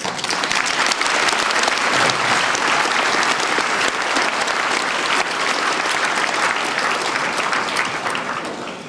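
Audience applauding, a sustained round of clapping that starts at once and fades out near the end.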